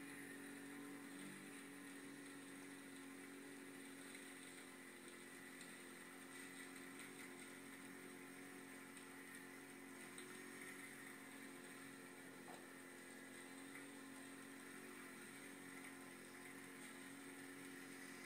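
Kawasaki Brute Force 750i ATV's V-twin engine running at a steady speed: a faint, even drone that holds nearly the same pitch throughout.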